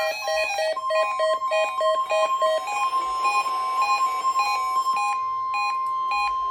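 NOAA Weather Radio alert tone: one steady pitch just above 1 kHz that starts about a second in and cuts off near the end. Underneath it, a plinking electronic melody of short repeated notes plays.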